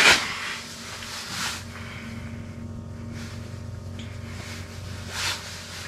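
A steady low hum runs throughout, with a few brief scuffs and rustles, about three, as a just-caught perch is handled and unhooked.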